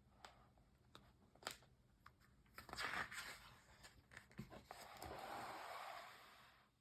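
Faint paper handling as a picture-book page is turned: a few light taps, a rustle about three seconds in, then a longer, even paper swish.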